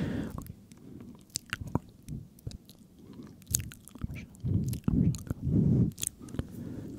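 ASMR mouth sounds: a string of short, wet clicks and smacks, with denser muffled stretches about two-thirds of the way in.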